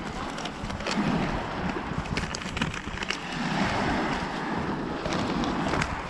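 Small waves washing onto a pebble beach, swelling a few times, with wind on the microphone and scattered light clicks.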